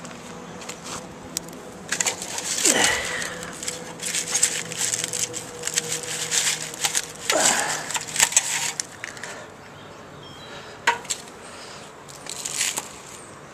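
Footsteps crunching and crackling through dry fallen leaves and grit on pavement, busiest from about two to nine seconds in, with a few more crunches near the end. Two brief falling whines sound through the crunching, about three and seven and a half seconds in.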